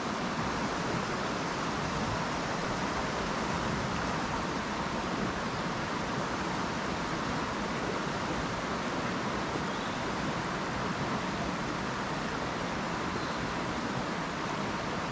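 Steady rushing of river water flowing over rocks, an even hiss with no breaks.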